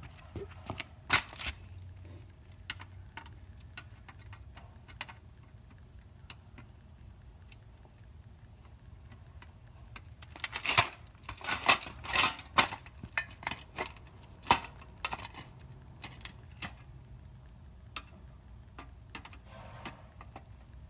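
Screwdriver prying at the crushed sheet-metal case of a smashed satellite receiver: scattered light clicks and metal clinks, with a cluster of sharper knocks and scrapes about halfway through.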